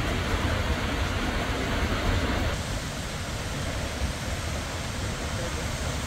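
Steady rush of the Seljalandsfoss waterfall, an even noise with a heavy low rumble. About two and a half seconds in it becomes slightly quieter.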